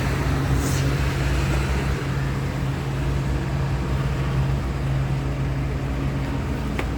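A vehicle engine idling with a steady low hum amid street traffic noise, with a brief hiss about a second in and a couple of clicks near the end.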